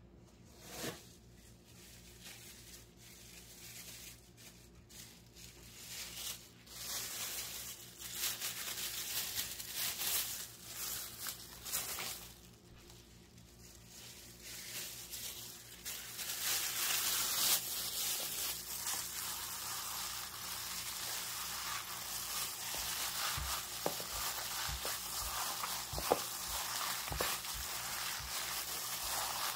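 A hand covered in a plastic bag squishes and kneads raw ground meat mixed with herbs, spices and an egg in a plastic bowl, the plastic crinkling as it works. The sound comes in patches at first and turns into steady kneading a little past halfway.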